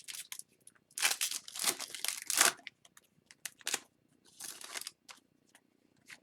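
Crinkling and tearing of a foil trading-card pack wrapper, with cards being handled: a run of short crackly rustles, the longest about a second in, then smaller ones and light clicks.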